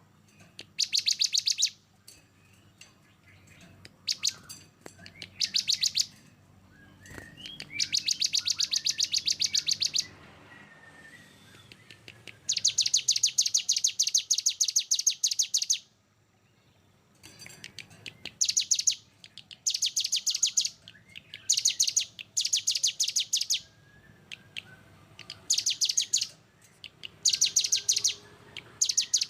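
Songbird singing 'tembakan' song: bursts of very rapid-fire repeated high notes, each burst one to three seconds long with short pauses and fainter chirps between. The longest run lasts about three and a half seconds, near the middle.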